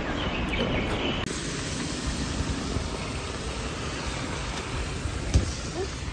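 Steady hiss of traffic on a rain-wet road, with a single sharp knock about five seconds in.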